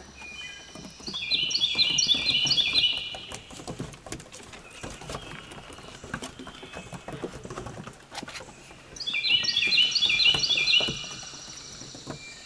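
A songbird sings two phrases of rapid, stepping high notes, one about a second in and the other about nine seconds in, each lasting about two seconds. Between the phrases come faint scattered ticks and scrabbles, which fit puppies' paws on a wooden deck.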